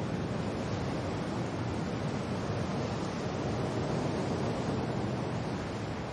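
Wind and rain: a steady rushing noise, heaviest in the low range, swelling slightly and easing again.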